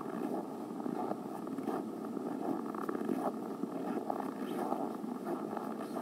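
Footsteps crunching through deep, dry snow in hard frost, about one step a second, over a continuous rough rustle.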